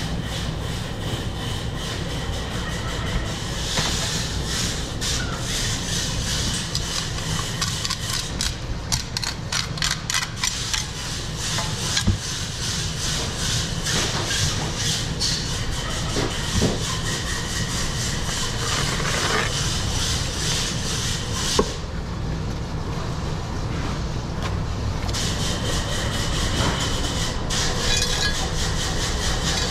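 Long knife slicing and scraping through yellowfin tuna flesh along the backbone against a cutting board, with a couple of sharp knocks, over a steady low hum.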